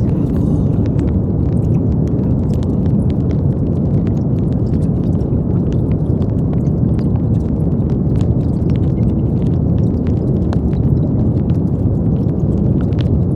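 Brown noise: a steady, deep hiss with most of its weight in the low range, and faint scattered clicks above it.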